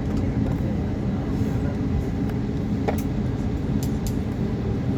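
Steady low rumble of an Airbus A320neo cabin on the ground during pushback or taxi, with a few faint clicks around the middle.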